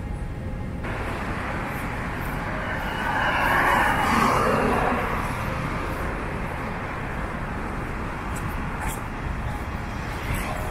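Road traffic ambience: a steady wash of traffic noise, with a car passing about three to five seconds in, loudest then.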